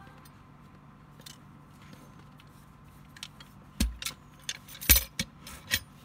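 Stainless steel mortise lock and lever handle worked by hand: a few faint metal clicks, then from about four seconds in a quick run of sharp clicks and knocks, with the keys hanging in the lock cylinder jingling.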